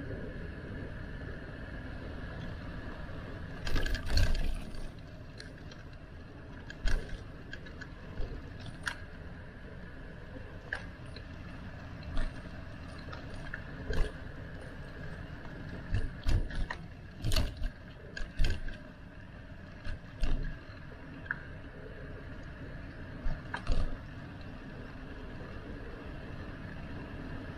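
Bicycle on the move: steady wind and rolling noise with a dozen or so irregular sharp knocks and rattles as the bike and its camera mount jolt over bumps.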